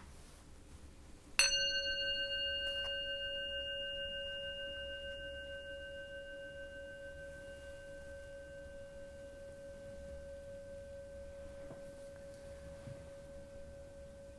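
A bell struck once about a second and a half in, its ring fading slowly over the following ten seconds or more.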